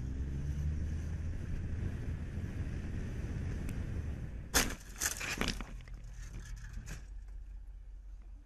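Steady low engine and road rumble of a vehicle edging forward between lanes of stopped traffic. About four and a half seconds in comes a short cluster of sharp knocks and clatter, the loudest thing heard, and the rumble gets quieter near the end.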